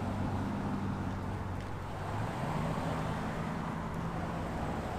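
A motor vehicle's engine running close by over street noise, its low hum shifting up in pitch a little over two seconds in.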